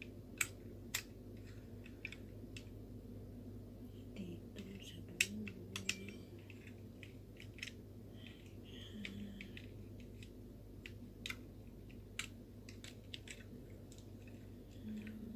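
Small plastic puzzle pieces of a toy Mini Cooper model clicking and snapping as they are handled and pressed together, in irregular clicks with a few sharper snaps near the start and about five seconds in. A steady low hum runs underneath.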